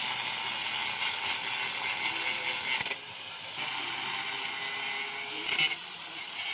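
Angle grinder cutting through a shaft: a loud, high-pitched grinding noise that drops away briefly twice, about three seconds in and again near the end.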